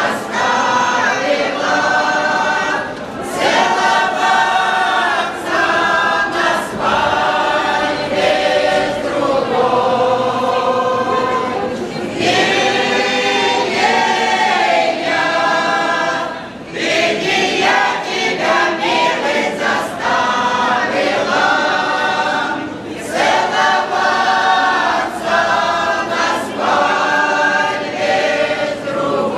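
A group of elderly women singing together unaccompanied, like a folk choir, in sung phrases a few seconds long with brief pauses for breath between them.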